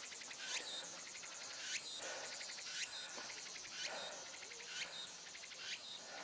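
Cicadas singing: a high, pulsing buzz that swells in a repeated phrase about once a second.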